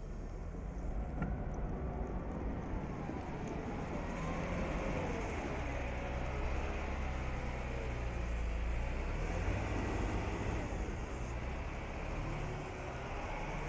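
Engine of a heavy snow-clearing machine running steadily with a deep rumble, over a fainter whine that rises and falls.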